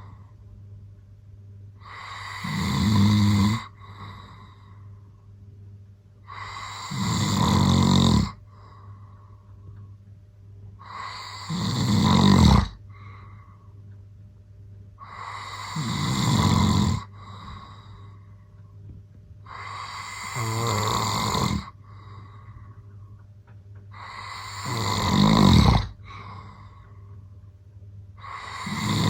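A man snoring loud, seven snores at an even pace of about one every four seconds, each one swelling and then cutting off sharply, with quiet gaps between.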